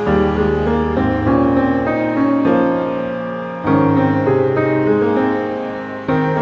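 Background instrumental music in slow, sustained chords that change about once a second.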